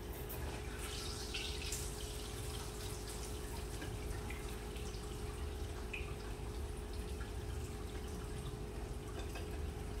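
Taco shell (tortilla) frying in a skillet of oil: a soft, steady sizzle with scattered crackles and pops, a few louder ones in the first two seconds. The oil is, in the cook's own view, not quite hot enough. A steady low hum runs underneath.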